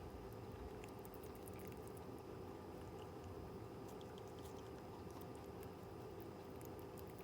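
Netherland Dwarf rabbit chewing pear: faint crunching with scattered small crisp clicks.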